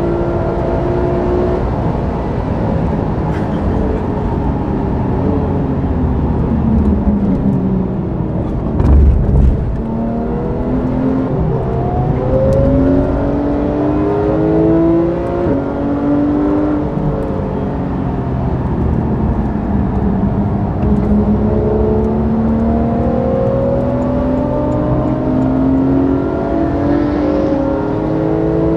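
Porsche 991 GT3's naturally aspirated flat-six heard from inside the cabin at track speed, climbing in pitch through the gears again and again and dropping back between climbs. A brief low thump comes about nine seconds in.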